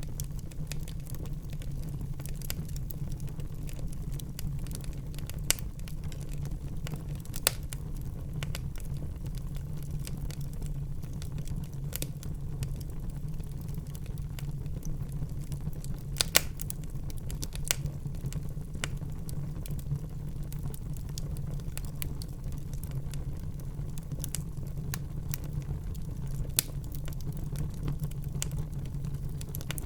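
Wood fire burning in a fireplace: a steady low rumble of the flames with irregular crackling and occasional sharper pops, about five of them standing out.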